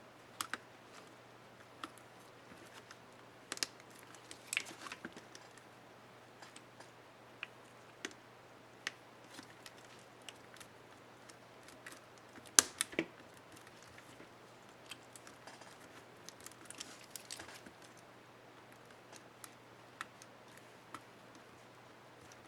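Small plastic clicks and taps from an Asus K55A laptop spacebar keycap and its retainer clips being handled and fitted, with one sharp snap about twelve seconds in, over a faint steady hum.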